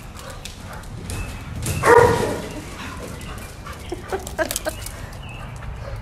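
A dog barks once, about two seconds in. A few short sharp clicks follow a couple of seconds later.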